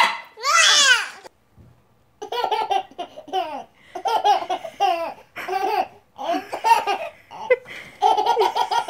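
A toddler's short high-pitched wail, then a baby laughing in a string of belly-laugh bursts, each about a second long.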